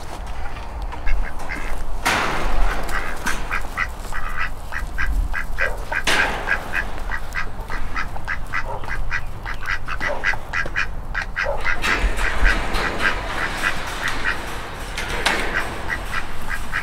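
Ducks quacking in long runs of short, rapid calls, with a couple of sharp knocks in between.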